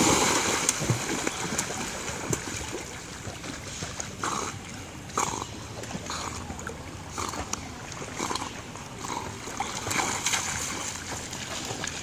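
A dog plunging into a river with a big splash right at the start, then swimming, its paddling making short splashes about once a second, and splashing back out through the shallows near the end.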